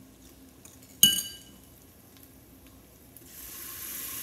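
A spoon clinks once with a short ring against the Instant Pot about a second in. Near the end a steady sizzle starts suddenly as yogurt goes into the hot oil and ghee in the pot on sauté mode.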